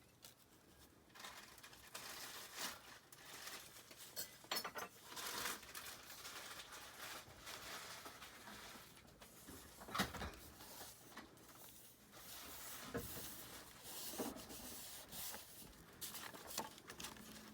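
Calendar paper being handled against a journal: faint rustling and crinkling with scattered light taps and clicks, one sharper knock about halfway through.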